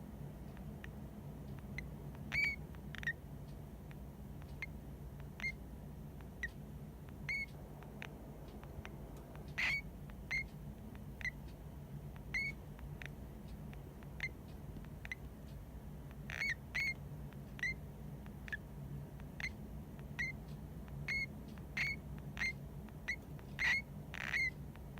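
A pet hamster giving short, high squeaks about once a second at irregular spacing while half-asleep, which the owner takes for sleep noises, perhaps snoring. A steady low hum runs underneath.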